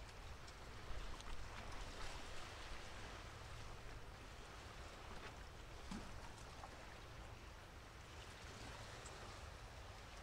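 Faint waterside ambience: water washing, a few light ticks of rain, and a low steady rumble underneath.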